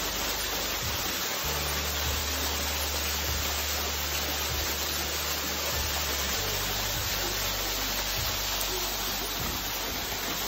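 Steady, even hiss of water spraying and dripping off a frozen waterfall's ice curtain, with a low rumble underneath for a few seconds.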